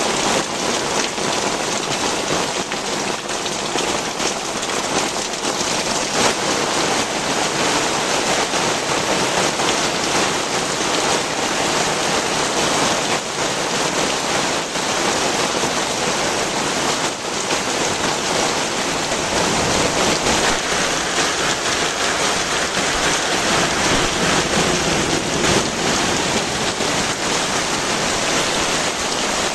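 Heavy rain pouring down steadily onto the ground and surfaces.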